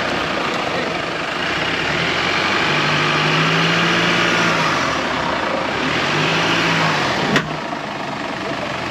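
Jeep Wrangler engine working at low speed as it crawls up a rutted, muddy trail, its note swelling and easing off a few times under the noise of tyres on dirt. A single sharp crack about seven seconds in.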